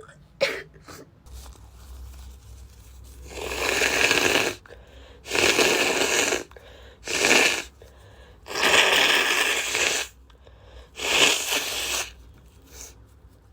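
A woman with a head cold blowing her nose hard, five long noisy blows of about a second each, a few short breaths between.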